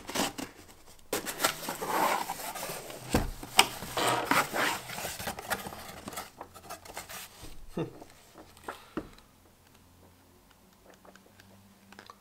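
A cardboard box being opened and unpacked by hand: cardboard flaps and paper rustling and rubbing, with a few knocks. It goes much quieter about nine seconds in.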